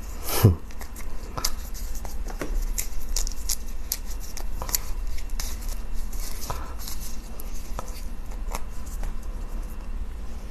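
Close-miked eating sounds: irregular soft clicks and smacks of chewing and mouth noises, with a louder thump about half a second in, over a steady low hum.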